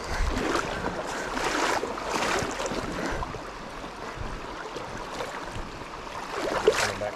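Steady rush of a high, fast-flowing creek running past the wading angler, with a short louder burst near the end.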